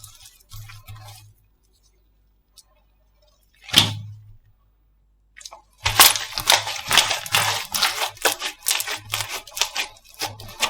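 Slime being handled: one sharp pop about four seconds in, then from about six seconds a dense run of crackling and popping as the slime is squeezed and pressed.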